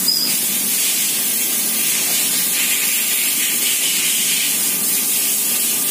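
A steady, loud hiss of noise, even throughout, with no distinct events.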